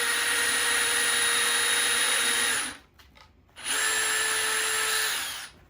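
Power drill running in two steady runs, the first about two and a half seconds and the second about a second and a half, each winding down as the trigger is released.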